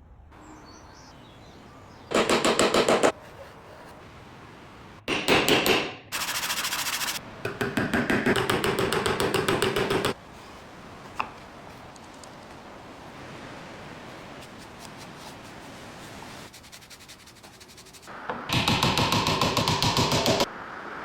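Several short bursts of rapid, even mechanical rattling, each lasting one to three seconds and starting and stopping abruptly, with quieter gaps between them.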